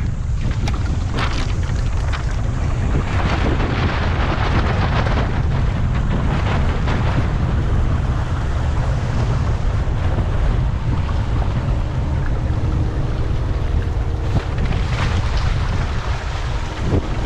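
Heavy wind buffeting the microphone over the rush and splash of water along the hulls of a Minicat 420 small sailing catamaran under way in strong wind.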